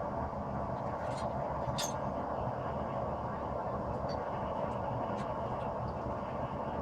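Steady rushing noise of a forge running, with a few faint clicks over it.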